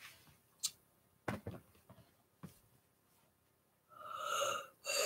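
A few faint clicks and knocks in the first half, then a long breathy breath in and out near the end, the start of a yawn.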